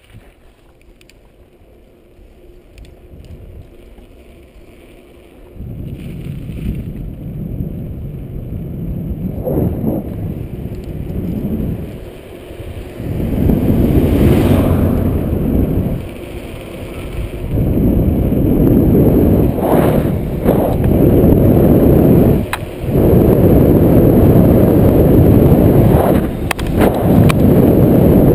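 Wind buffeting a bicycle-mounted GoPro's microphone, mixed with tyre rumble over a rough road surface, growing louder in stages as the bike gathers speed, with a few short knocks from bumps.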